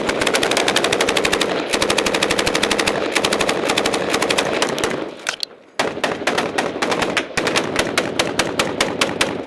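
Loud, close automatic gunfire in rapid, evenly spaced shots. One long sustained burst lasts about five seconds; after a brief pause come two more bursts.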